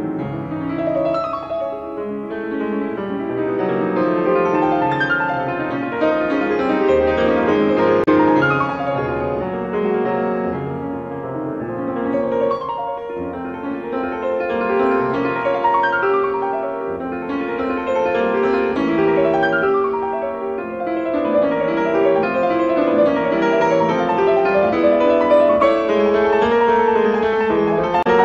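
Classical piano music playing without a break, swelling and easing in loudness every few seconds.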